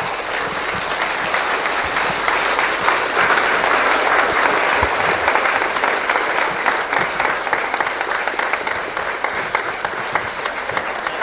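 Audience applause, a dense patter of many hands clapping that swells over the first few seconds and then holds, easing slightly toward the end.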